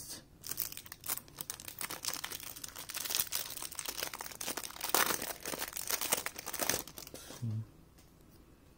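Clear cellophane wrapper crinkling as it is torn open and peeled off a stack of playing cards, stopping about seven seconds in.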